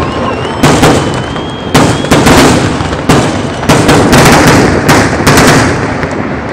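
Aerial fireworks shells bursting during a finale: a rapid, irregular string of loud booms, one or two a second, each followed by a rolling echo.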